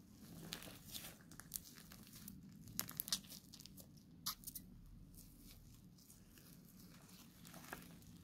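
Fluffy slime being squished and stretched by hand, giving irregular sticky crackles and small pops, with a cluster of sharper snaps about three seconds in.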